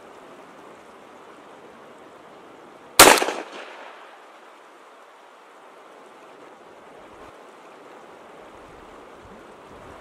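A single gunshot from a shoulder-fired long gun about three seconds in, sharp, with a short echoing tail. The steady rush of river rapids runs beneath it.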